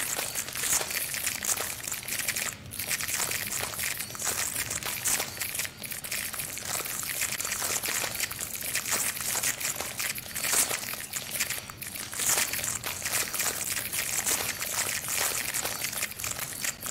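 Dense, continuous crackling and crinkling noise made of many tiny clicks, mostly high-pitched.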